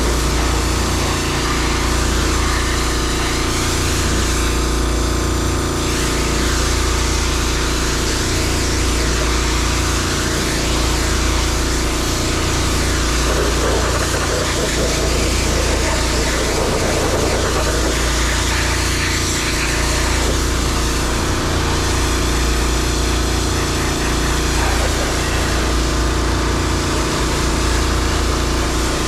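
An engine running steadily at a constant speed, with a rougher noise joining for a few seconds about halfway through.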